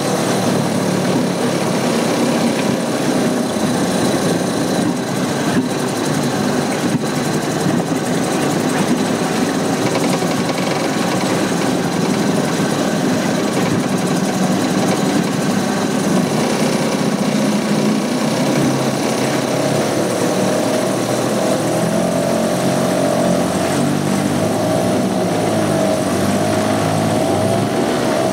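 Evinrude 3.3 hp two-stroke outboard running steadily in a water test tank, its engine speed wavering up and down a little in the last several seconds.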